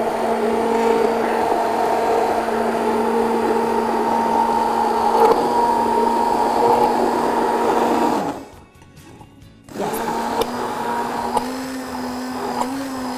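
Electric hand (stick) blender whipping cream in a tall beaker, its motor running with a steady hum. About eight seconds in it stops and winds down. A second and a half later it starts again, running slightly higher in pitch.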